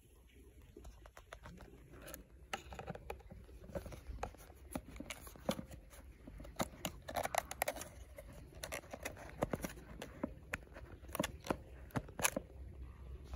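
Irregular plastic clicks, taps and short scrapes of a hand handling a 20V battery with a 3D-printed adapter against a cordless tool, sparse at first and busier from about two seconds in; the sharpest click comes near the end.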